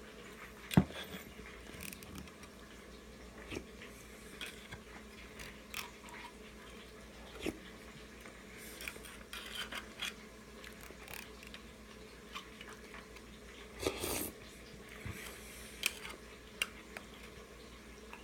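Metal fork clicking and scraping against the inside of an opened tin can of beans, with quiet chewing between scoops. The clicks come scattered and irregular, the sharpest about a second in, and a louder sound lasting about a second comes near fourteen seconds in.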